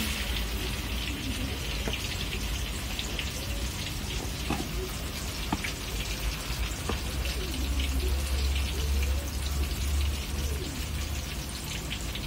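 Tofu and egg batter fritters sizzling and crackling in hot oil in a wok, a dense patter of tiny pops, strongest in the first few seconds and easing a little after. A low rumble sits underneath and swells about eight seconds in.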